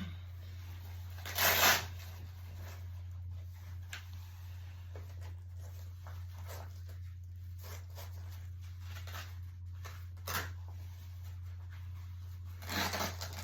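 Blood pressure cuff being handled and fastened around the arm, its Velcro giving short rasping rips: a loud one about a second and a half in, then two shorter bouts later. A steady low hum sits underneath.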